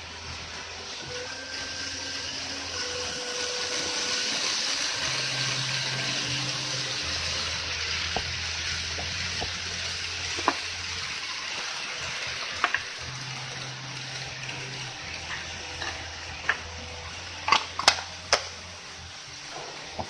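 Model Hokutosei sleeper train running on the layout track: a steady rushing rumble of wheels on rail that swells as the blue coaches pass close by, then eases off. A few sharp clicks come near the end.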